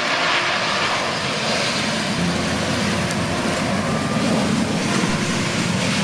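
Boeing 737 airliner's jet engines during its landing roll just after touchdown, a loud steady rush that grows deeper and stronger from about two seconds in as the jet slows on the runway.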